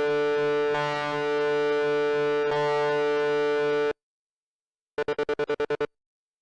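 Overdriven electric guitar chord from a Fender Stratocaster ringing through the Djenter's Little Helper pedal, cut off abruptly by the pedal. After a second of silence comes a brief burst of the pedal's fast on-off tremolo, about eleven chops a second, which stops short.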